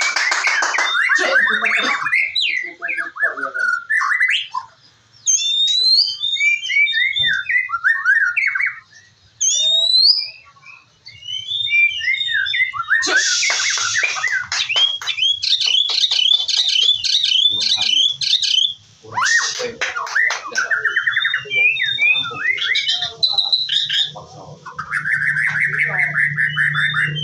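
White-rumped shama singing a long, varied song: quick whistled notes sliding up and down, fast trills and rapid repeated-note runs, broken by a few short pauses.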